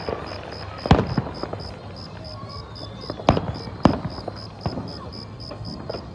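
Aerial fireworks bursting: a loud bang about a second in, then two more close together a little past three seconds, with smaller pops and crackles between them.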